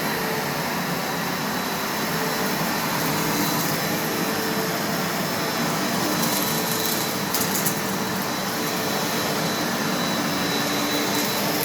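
Vacuum cleaner running steadily, with brief crackles about six to seven seconds in.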